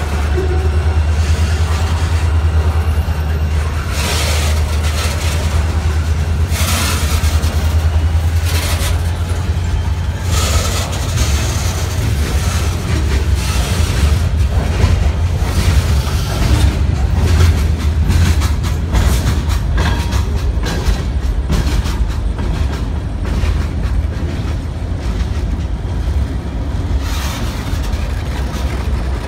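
Freight train rolling past at close range: a steady heavy low rumble with repeated clanks and clatter from wheels and cars. Near the end a Norfolk Southern GP38 diesel locomotive rolls by in the train.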